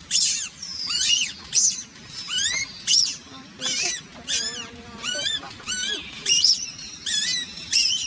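Newborn macaque infant crying in distress: a run of high-pitched, wavering squeals, about two a second. It is held down on the ground by its mother and kept from nursing.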